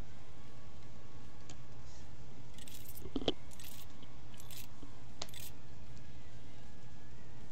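Steady low hum with a few light clicks and clinks from handling things on a desk. The loudest is a single knock about three seconds in.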